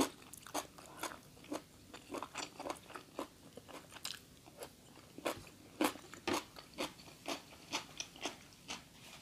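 A person chewing crunchy food close to the microphone, with a crisp crunch about twice a second.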